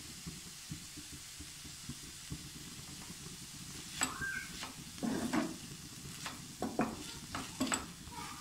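Chopped vegetables sizzling faintly in oil in a frying pan. From about four seconds in, a wooden spatula stirs and scrapes them around the pan in quick, irregular strokes.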